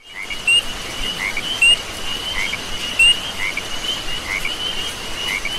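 Chorus of calling frogs: a steady high trill with short chirps repeating about every half second, and three louder, sharper chirps in the first three seconds.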